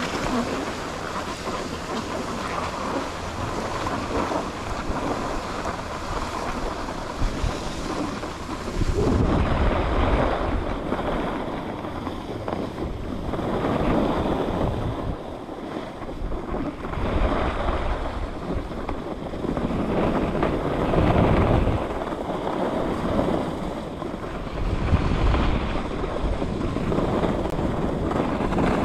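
Wind rushing over the microphone of a skier's camera, with skis hissing and scraping over groomed snow in a steady noise that swells and fades every few seconds with the turns.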